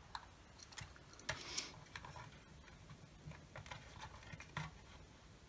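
Faint, irregular small clicks and taps of a soldering iron and wires being handled on a projector's circuit board while fresh solder is put on a joint, with a brief soft hiss about a second and a half in.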